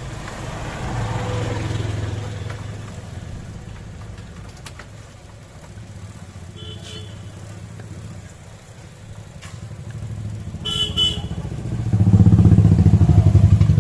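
Motor traffic going by, motorcycles among it: a low engine rumble that swells and fades. A short horn toots a little before the last three seconds, and an engine passes loudly near the end.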